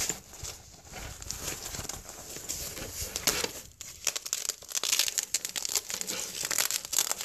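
Stiff fabric of a VISM (NcStar) first responder utility bag rustling and crinkling as its flap and back compartment are pulled open and handled by hand, in irregular scrapes that grow busier about halfway through.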